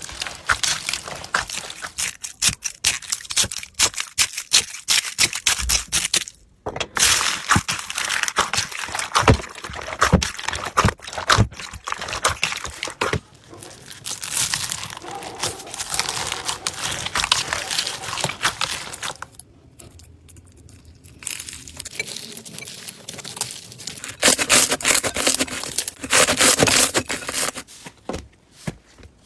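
Hands squeezing and poking slime, making rapid crackling and clicking pops. Around the middle it turns to softer, smoother squishing.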